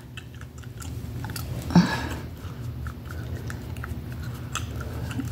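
Soft clicks and rubbing close to the microphone over a steady low hum, with a brief murmur of a woman's voice about two seconds in.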